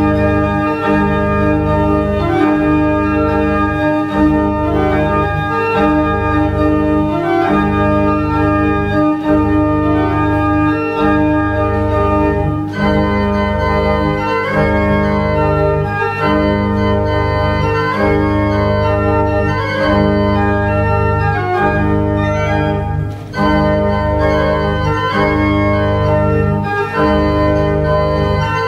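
Baroque pipe organ built by Martin Podkonický in 1751 playing a 16th-century Renaissance dance: sustained chords over a bass note that is re-sounded about once a second.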